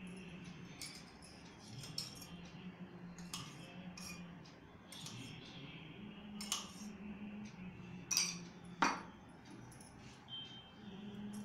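Stainless steel utensils clinking: a spoon and a steel tumbler tapping against steel bowls and a plate in scattered light clinks, with two louder ones about eight seconds in. A faint low steady hum runs underneath.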